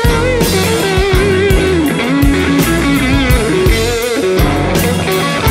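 Rock music with a bending, wavering electric guitar lead over bass and drums.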